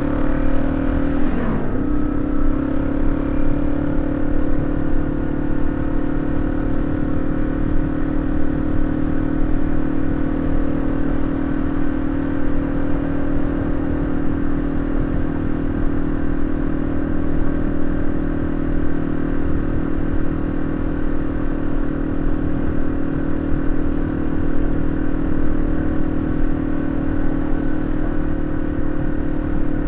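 Yamaha XT225 Serow's single-cylinder four-stroke engine running at a steady cruise, its pitch dipping briefly and recovering about a second and a half in, over a low rush of wind.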